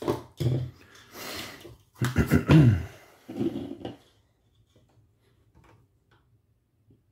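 A man's low, wordless vocal sounds, mumbling with one sound falling in pitch, for about four seconds. After that come only a few faint small taps.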